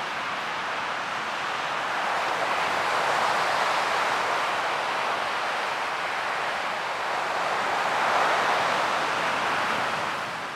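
Ocean waves washing in, an even rushing noise that swells twice, about three and eight seconds in, and eases off near the end.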